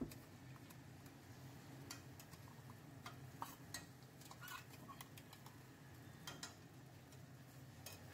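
Faint, scattered clicks and clinks of a steel spatula against a steel bowl and a metal kadai as ground masala paste is scooped into frying onions, over a low steady hum.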